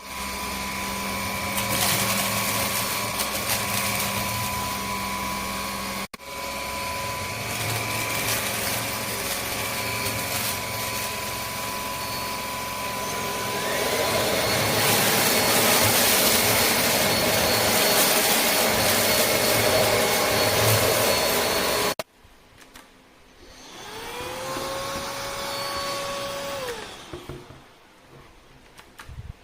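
MIUZZY cordless stick vacuum cleaner running, a steady motor hum with a whine, in several joined clips. About halfway the whine rises in pitch and the run gets louder as the motor speeds up; after a sudden stop, the motor spins up again more quietly and winds down near the end.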